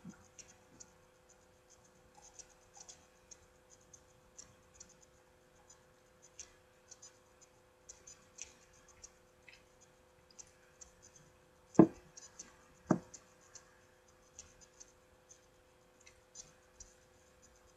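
Small, quiet ticks and crackles of hands handling and eating a cinnamon roll, over a faint steady hum. Two sharp knocks about a second apart past the middle stand out as the loudest sounds.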